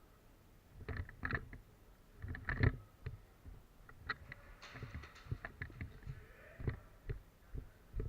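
A string of irregular knocks and thumps, loudest about one and two and a half seconds in, followed by lighter ticks.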